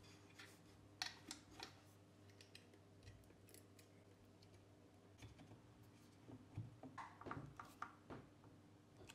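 Faint close-up handling sounds of a speaker driver being fitted into a plywood speaker cabinet: a sharp click about a second in, then scattered small clicks, and a run of clicks and scrapes near the end as a screwdriver works on the driver's mounting screws, over a low steady hum.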